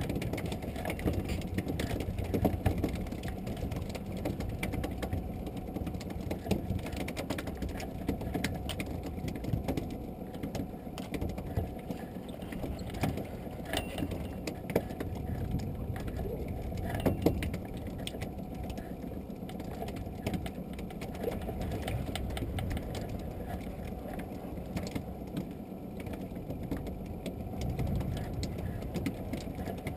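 Spinning reel being cranked, its gearing giving a fast, continuous ticking rattle over a steady low rumble.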